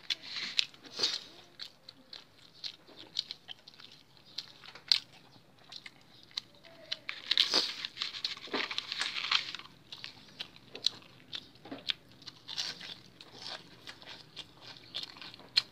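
Crisp breaded chicken katsu crunching as it is torn apart by hand and chewed, in irregular crackly bursts, loudest a little past the middle.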